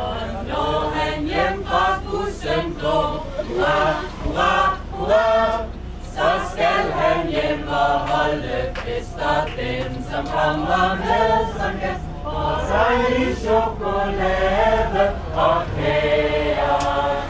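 A busload of passengers singing a birthday song together to their bus driver, many voices in unison.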